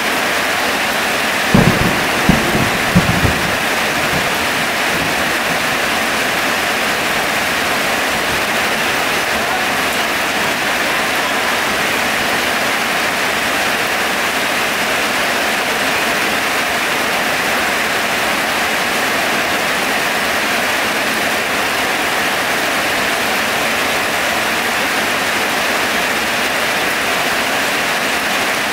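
Heavy rain falling steadily, an even hiss. A short cluster of low thumps comes about a second and a half in.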